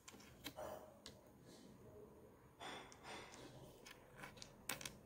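Near silence with faint handling sounds: a few soft clicks and taps as pistachio shells are pressed onto glued cardboard on a wooden table, with a quick cluster of clicks near the end.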